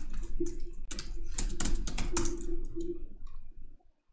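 Computer keyboard keys clicking in an irregular run of typing, stopping about three-quarters of the way through, over a low steady hum.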